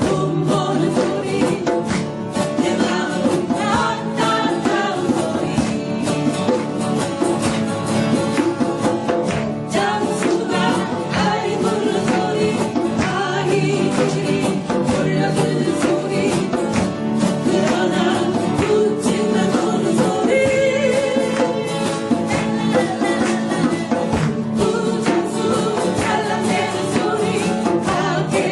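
A band playing a song: acoustic guitar with singing over it.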